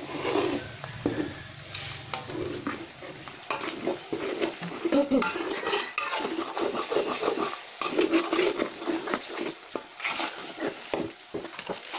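Metal spatula scraping and stirring a thick rendang paste with toasted coconut (kerisik) in a large steel wok, in quick, irregular repeated strokes, while the paste fries and sizzles.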